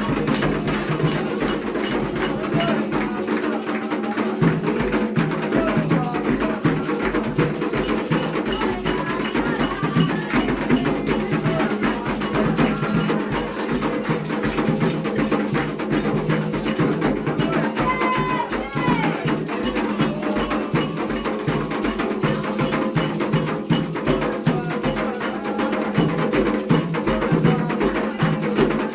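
Candomblé ritual drumming: hand drums and a sharp clacking struck part keeping a fast, steady rhythm.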